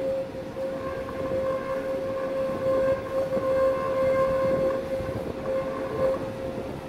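Tram wheels squealing on a tight curve of track: one steady, high-pitched squeal that stops abruptly about a second before the end, over the low rumble of the tram rolling on the rails.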